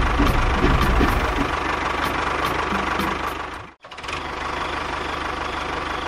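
Tractor engine running with a steady knock; the sound breaks off for a moment about two-thirds of the way through and then goes on evenly.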